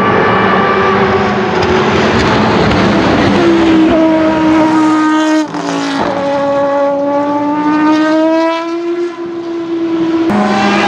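The Judd GV4 V10 of a 2002 Dome S101 racing prototype screaming at high revs as the car runs at speed. The engine holds a high, fairly steady note, with abrupt jumps about halfway and near the end where one pass gives way to another.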